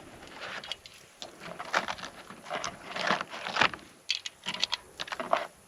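Cartridges being pressed by hand into a CZ 75 Tactical Sport pistol magazine: a run of irregular short clicks.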